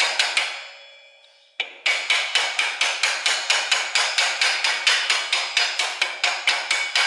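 Nylon-headed mallet tapping rapidly, about five blows a second, on a tight-fitting new part being driven onto the splines of a motorcycle's drum-brake wheel hub. The blows stop briefly about half a second in, leaving a metallic ringing that fades, then resume at the same steady pace.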